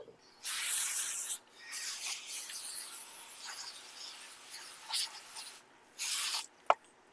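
Garden hose spray nozzle spraying water over a freshly scaled black sea bass and a plastic cutting board, in bursts: a strong spray for about a second, a softer spray for several seconds, then another short strong burst. A sharp click comes near the end.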